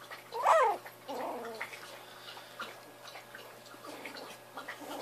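Jack Russell Terrier puppies play-fighting: a sharp yelp that rises and falls about half a second in, then a short wavering puppy growl, followed by faint scuffling clicks.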